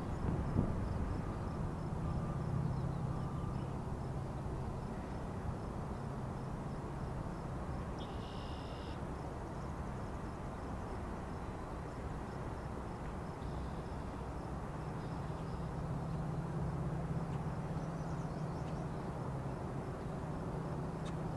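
Outdoor ambience: a steady low rumble, with an insect chirping faintly at a steady pace and a few short bird calls.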